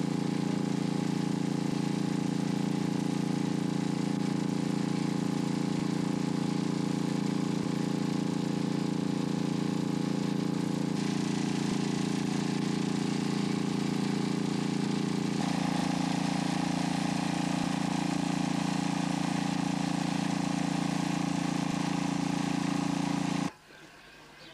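An engine running steadily at idle with an even, unchanging pitch, cutting off suddenly near the end.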